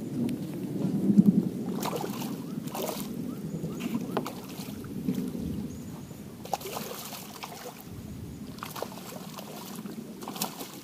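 Water splashing in short irregular bursts as a hooked pacu thrashes at the surface while being played on the line.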